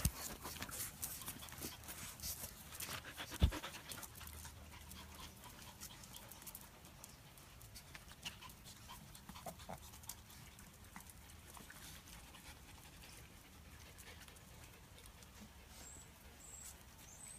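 Small long-haired dogs panting close by, with scratchy clicks and rustles over the first few seconds and one loud knock about three and a half seconds in, then quieter.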